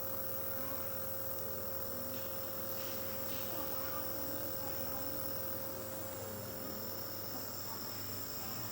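Compressor nebulizer running with a steady hum while it mists a treatment for a lingering cough.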